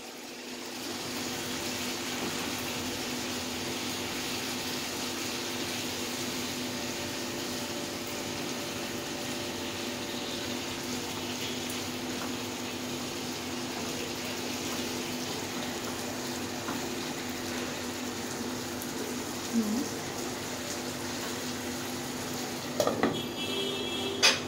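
Chicken simmering in a thin sauce in a wok over a gas flame: a steady bubbling hiss. Near the end, a short clatter with a ringing clink as the glass lid is set on the pan.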